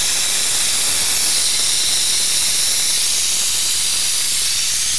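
Pneumatic brake bleeder hissing steadily as compressed air runs through it, drawing old brake fluid out of a motorcycle's front brake caliper through the open bleed valve during a fluid flush.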